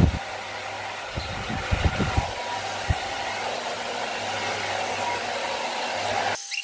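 Handheld hair dryer blowing on wet makeup brushes to dry them: a steady blowing noise, with a few low thumps early on, that stops suddenly near the end.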